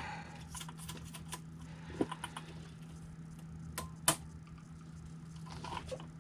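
Scattered light clicks and taps of small plastic and metal parts being handled, with a few sharper clicks about two and four seconds in, as the spring preload is taken out of a 1/10-scale RC truck's shocks.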